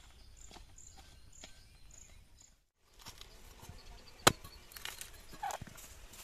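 A curved machete chopping into the husk of a green coconut: several sharp blows, the loudest about four seconds in, as the nut is husked to be opened. Before it, faint footsteps on open ground.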